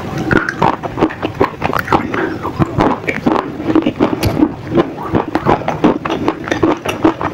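Close-miked crunching and chewing of slate pencils: a rapid, irregular run of sharp crackles and crunches as the grey sticks are bitten and ground between the teeth.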